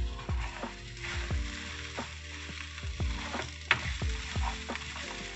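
Food frying in hot oil in a pan, a steady sizzle, over background music with a steady beat. There is a sharp tap a little after halfway.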